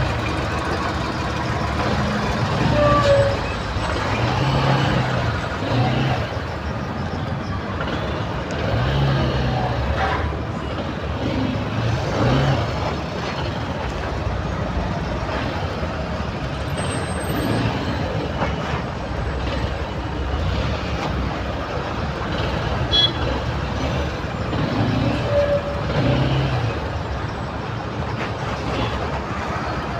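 Dense slow highway traffic heard up close among trucks: engines running and rising and falling, with a few short horn toots.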